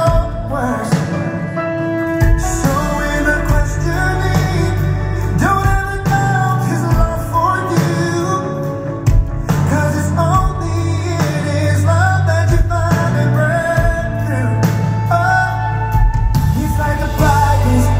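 Live pop-rock band playing with a male lead singer, recorded from the audience in a concert hall.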